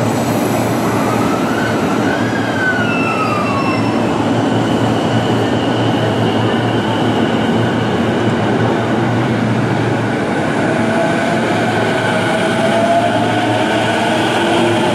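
E233-series electric commuter train pulling out of the platform, wheels and running gear rumbling steadily as it gathers speed. A motor whine rises in pitch over the last few seconds as it accelerates.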